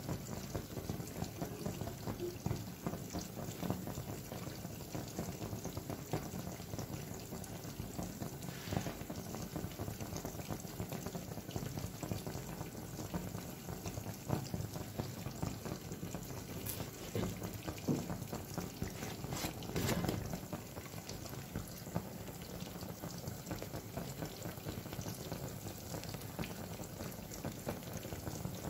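Kesra flatbread cooking in a pan over a gas burner: a steady low hiss with faint crackling, and a few brief louder noises, the loudest about twenty seconds in.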